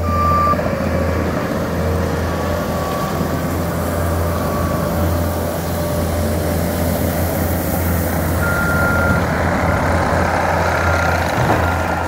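Compact track loader's diesel engine running steadily under work, with its backup alarm giving several short high beeps at uneven intervals.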